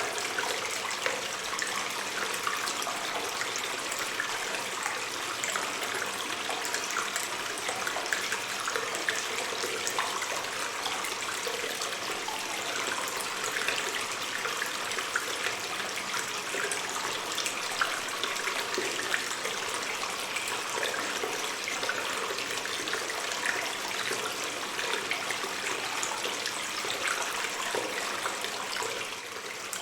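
Water stream running and trickling in a cave, a steady splashing rush that stays even throughout.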